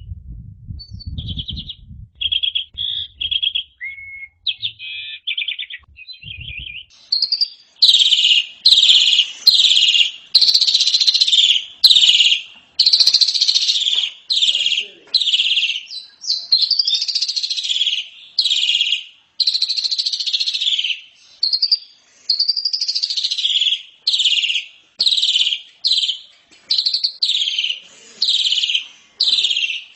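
Asian pied starling (jalak suren) singing: a few short high chirps at first, then from about seven seconds in a long run of loud, harsh chattering phrases repeated roughly once a second.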